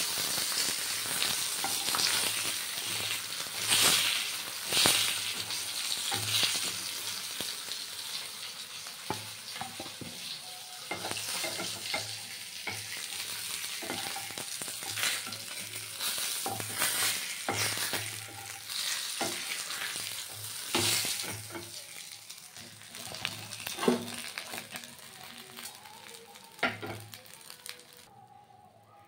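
Katla fish steaks sizzling and spattering as they fry in hot oil in a pan. Sharp clicks and scrapes come as the pieces are turned and lifted out. The sizzle fades and stops about a second before the end.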